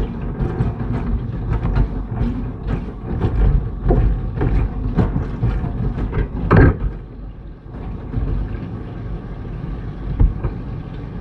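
Fresh-cut potatoes deep-frying in a pot of oil on a gas stove, not yet done: a sizzle full of crackles and pops over a low rumble. One loud pop comes a little past the middle, after which the crackling thins to a steadier hiss.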